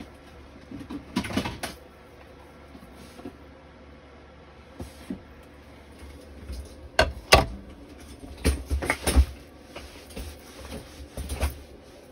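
Scattered knocks and clacks of hard plastic craft tools being handled, sharpest a little past halfway and again near the end, as a large plastic circle paper punch is fetched and set down on a cutting mat.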